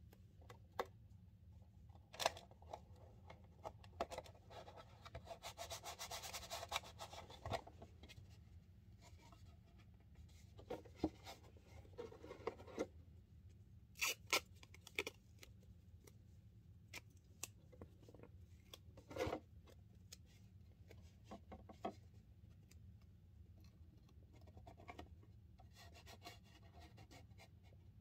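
Quiet handling of sticky tape and a cardboard cornstarch box: scattered rubbing, rustling and small clicks as the tape is picked at and pulled from the roll, with a longer rustle about five to eight seconds in.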